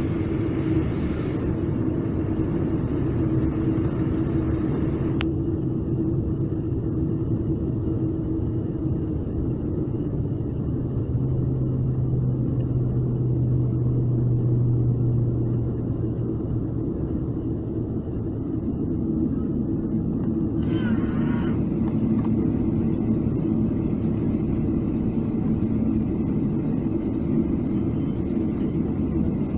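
Inside the cabin of a Boeing 777-300ER taxiing: steady hum of its GE90 engines at low power over the rumble of the wheels on the taxiway. A lower hum comes in for a few seconds in the middle, and there is a short scratchy noise about two-thirds through.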